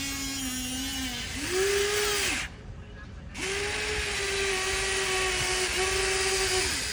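Huina RC excavator's small electric motors whining in four spells, each spinning up and winding down as its controls are worked, with a brief pause about two and a half seconds in.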